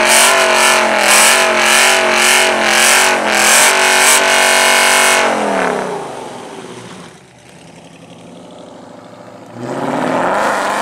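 Dodge Challenger R/T's 5.7-litre HEMI V8 held at high revs during a burnout, the rear tires screeching in a pulsing beat about twice a second. About five seconds in the revs drop and the engine settles to a quieter idle, then it revs up briefly again near the end.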